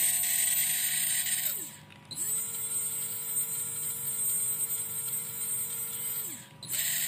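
Surpass 4800 kV brushless motor on a 25A ESC, unloaded, spun up and down by the throttle: a high electric whine that holds, winds down about a second and a half in, spins up again for about four seconds at a slightly lower speed, winds down, and starts again near the end. It runs smoothly, as a used combo in normal working order.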